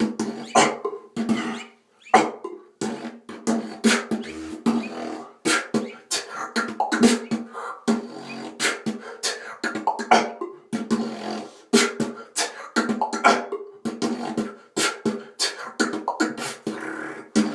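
Beatboxing: a fast, steady rhythm of mouth-made kicks, hi-hats and snares, with a cough standing in for the snare, over a hummed tone that holds between the hits.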